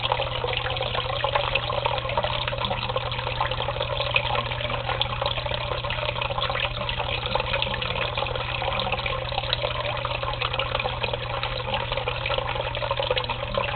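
Water from a turtle tank's filter outflow splashing steadily into the tank water, with a steady low hum underneath.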